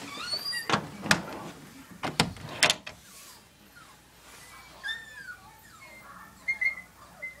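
A few sharp knocks and rattles, then faint high, wavering whines from a small dog.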